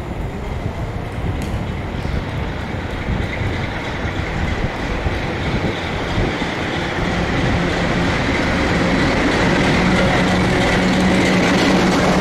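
Class 47 diesel locomotive running light engine, its Sulzer twin-bank 12-cylinder engine growing steadily louder as it approaches and draws alongside, with a steady low drone coming up strongly from about halfway in.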